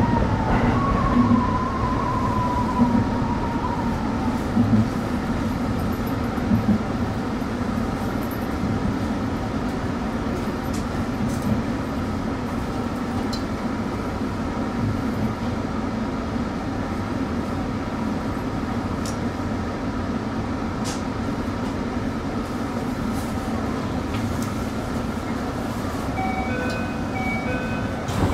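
Tsukuba Express TX-2000 series electric train running, a steady rumble of wheels and motors heard from the cab. An electric motor whine slides down in pitch over the first few seconds, and stepped steady tones come in near the end.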